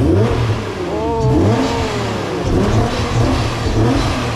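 Nissan GT-R's twin-turbo V6 revved while parked, several quick blips of the throttle, the pitch rising and falling with each.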